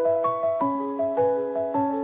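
Lofi instrumental music: a soft melody of sustained keyboard notes over a gentle, regular beat.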